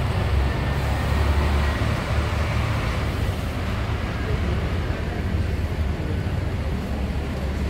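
Diesel coach engines running at close range, a steady low rumble. The engine noise is louder in the first few seconds as one coach pulls away.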